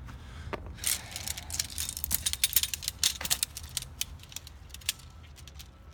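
Shock-corded aluminum tent poles rattling and clicking as they are unfolded and their sections snap together: a dense run of quick metallic clicks in the first half, thinning to scattered clicks later.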